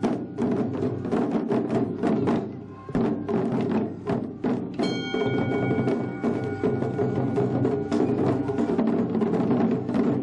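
Taiko drum ensemble playing: many drums struck together in a quick, driving rhythm, with a brief lull about two and a half seconds in. About five seconds in, a ringing metallic tone starts over the drumming and fades away over a few seconds.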